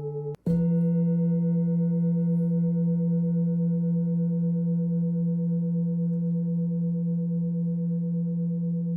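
Hand-hammered bronze singing bowl from a Nepalese seven-chakra full-moon set, struck about half a second in and ringing on steadily with a deep hum and several higher overtones, its loudness slowly pulsing. The ringing of the previous bowl cuts off abruptly at the very start.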